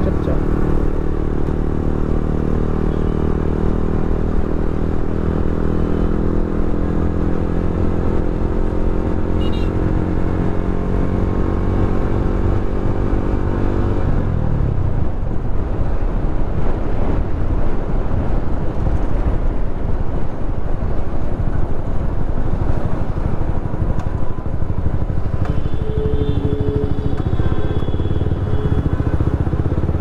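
Yamaha R15's single-cylinder engine running on steady throttle while riding, its pitch creeping slowly up. About halfway through the throttle closes and the engine note drops away, leaving mostly wind and road noise.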